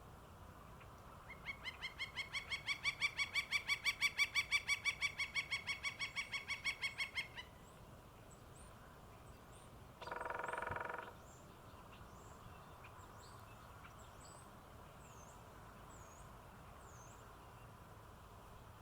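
Northern flicker giving its long call: a rapid run of loud, evenly spaced notes, about seven a second, swelling and then easing off over about six seconds. About ten seconds in comes a single harsh call about a second long, and faint high chirps of small birds follow.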